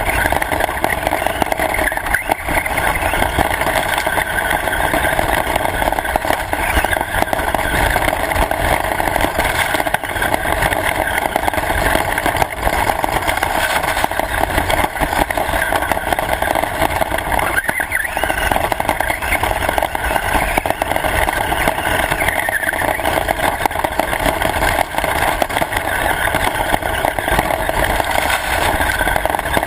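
Radio-controlled car driving: a loud, steady, noisy rumble that runs without a pause.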